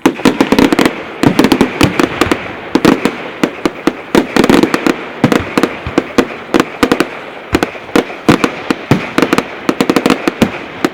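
Fireworks display going off in a dense barrage of bangs and crackling reports, many each second, which starts suddenly and stops shortly before the end.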